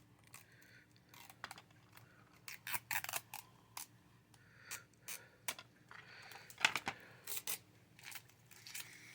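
Fingernails picking at and peeling a security sticker off a plastic DVD case: faint, scattered clicks, scratches and short tearing sounds.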